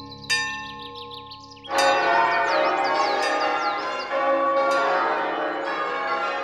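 A single bell stroke ringing on, then from just under two seconds in a peal of church tower bells rung by rope, many bells striking in quick succession and overlapping.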